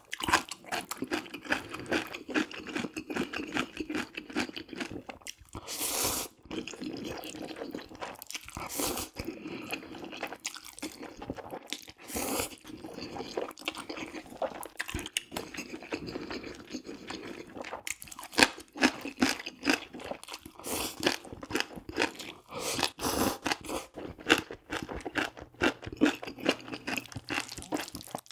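Close-miked eating of jjajang ramyun noodles with beef: wet chewing and mouth clicks, with several longer slurps of noodles.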